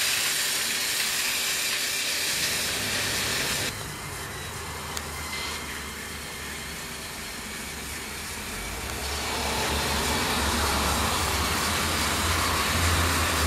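Battery-powered Tomy Trackmaster toy train running on plastic track, a steady high motor whine with wheel rattle that stops suddenly about four seconds in. After a quieter stretch, a low engine rumble comes up from about nine seconds.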